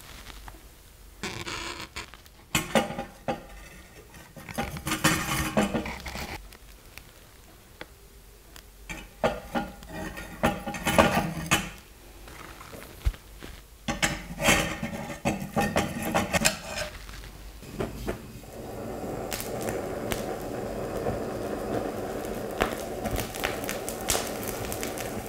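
Dishes and metal utensils clattering and knocking in irregular bursts as a table is set up. About three quarters of the way through, a steady, even sound takes over.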